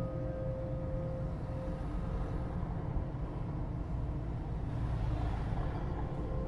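Low rumbling ambient drone from the film's background score and sound design. A held tone carried over from the preceding music fades out in the first couple of seconds, and a hissing swell rises about five seconds in.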